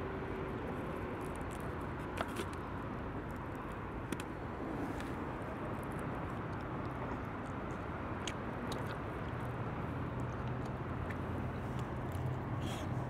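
A person chewing and biting food, with a few small clicks, over a steady background of outdoor traffic noise. A low engine drone grows louder in the last few seconds.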